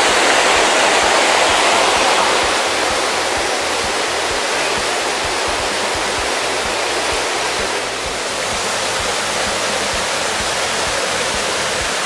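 Waterfall rushing steadily, a little quieter from about two and a half seconds in.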